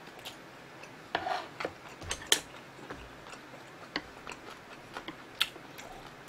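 Close-miked eating sounds: soft mouth noises and a few sharp clicks of chopsticks against the dishes as food is picked up from the tray.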